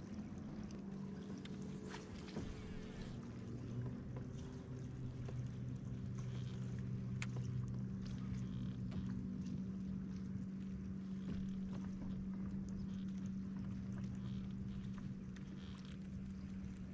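A fishing kayak's drive humming steadily and low as the boat moves slowly along, with light water noise and a few faint ticks.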